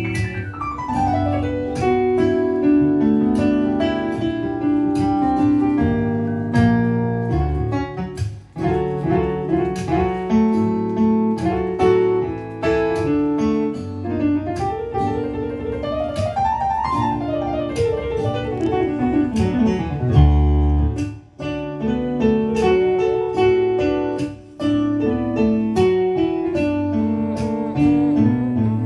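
Jazz piano played live on a Yamaha MO8 synthesizer keyboard, with chords and a fast run sweeping down at the start, another run climbing and falling back near the middle, and a deep bass note about two-thirds through.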